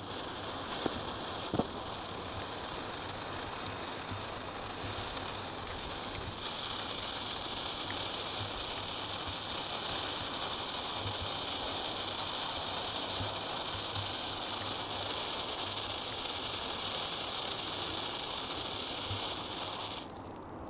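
A 'Hundehaufen' snake-type novelty firework burning with a steady hiss as it pushes out its dark ash worm. The hiss grows stronger about six seconds in and stops near the end, with a couple of faint clicks in the first two seconds.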